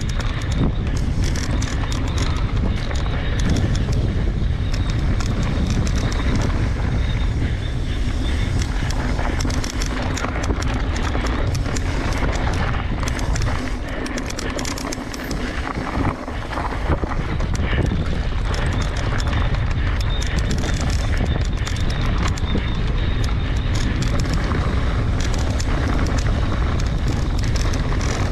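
Mountain bike descending a rough gravel fire road at speed: wind rushing over the microphone with the tyres crunching and the bike rattling over loose rocks. It eases briefly about halfway through.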